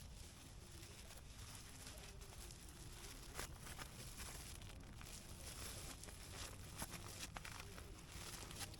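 Faint rustling and crinkling with scattered light clicks and knocks: a sleeping bag and sleeping mat being handled and packed away.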